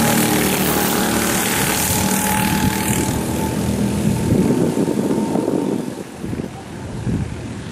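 Several rental go-kart engines running at speed as the karts pass on the circuit, a steady buzzing engine note that turns rougher after about three seconds and drops in level about six seconds in.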